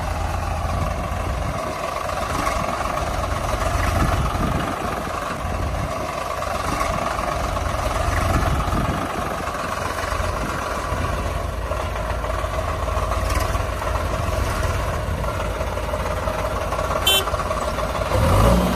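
Heavy diesel engine of earth-moving machinery running steadily with a low rumble, with a brief high clink near the end.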